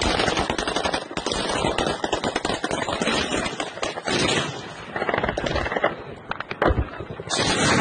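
Machine-gun fire from a mobile air-defence team shooting at a drone in the night sky, the shots coming in rapid strings with short breaks.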